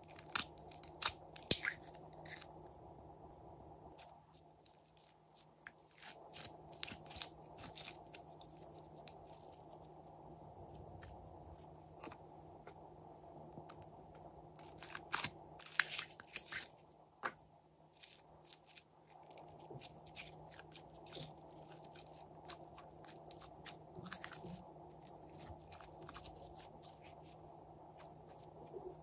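Fingers poking and squeezing glossy glitter slime in a plastic cup, giving sharp sticky clicks and crackles. The clicks come in clusters: just after the start, again about halfway through, and near the end, with quieter stretches between.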